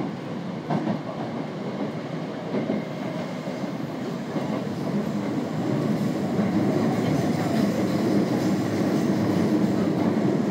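Osaka Midosuji Line subway train running between stations, heard from inside the car: a steady rumble of wheels on track that grows louder about six seconds in, with a few rail clicks.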